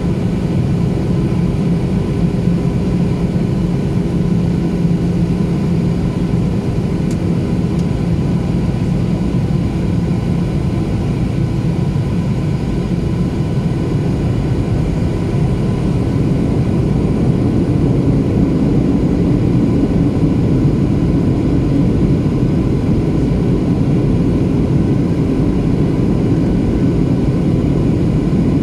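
Cabin noise of a Boeing 737 descending on approach: the steady drone of its jet engines and the rush of air past the fuselage, with steady hums running through it. It grows a little louder a bit over halfway through.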